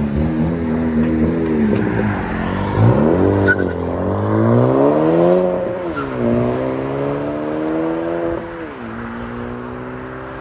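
Honda Civic Si's turbocharged 1.5-litre four-cylinder through a muffler-delete exhaust, accelerating away through the gears of its six-speed manual: the exhaust note climbs in pitch and drops at each upshift, about three times, then fades as the car pulls away.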